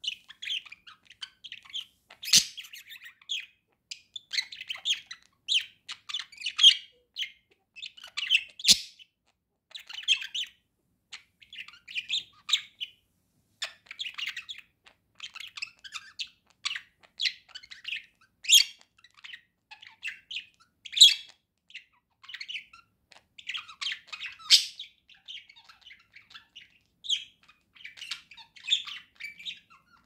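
Pet budgerigar warbling: a continuous stream of rapid chirps, chatter and squeaks, with two sharp clicks about two and nine seconds in.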